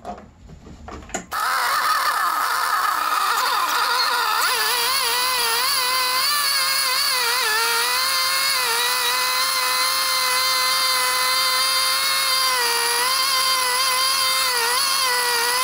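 A 1995 Arctic Cat ZR 700's two-stroke snowmobile engine comes in suddenly about a second in and runs steadily at a raised speed, about 3,000 rpm, its pitch wavering slightly before settling. The oil injection pump is set fully open for an oil-consumption test.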